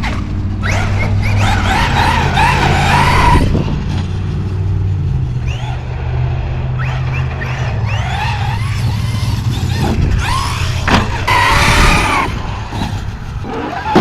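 Large Traxxas electric RC monster trucks being driven hard, their brushless motors whining up and down in pitch as they accelerate and slow. The whine is loudest in two spells, about a second in and again near the end.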